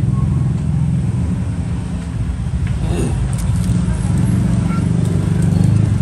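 Steady low rumble of a running engine or motor, with a few faint clicks around the middle.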